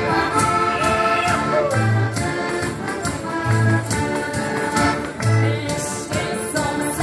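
Several heligonkas (Slovak diatonic button accordions) playing a folk tune together in sustained chords, with deep bass notes returning every second and a half or so.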